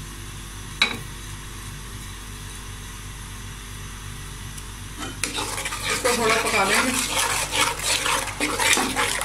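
A metal slotted spoon taps the wok once about a second in. From about five seconds in it stirs briskly through a thick sauce, scraping and clicking against the pan.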